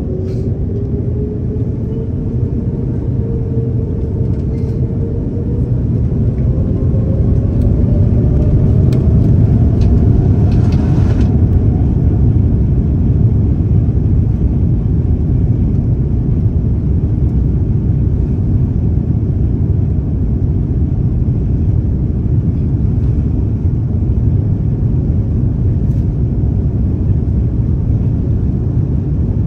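Airbus A330-900neo heard from inside the cabin on its takeoff run: the Rolls-Royce Trent 7000 engines at takeoff thrust over a deep rumble, with a whine rising in pitch and the sound growing louder over the first ten seconds, then holding steady. A brief hiss comes about ten seconds in.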